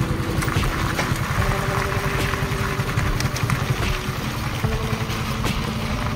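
A motor vehicle running on the move: a steady, heavy low rumble with a few faint tones above it.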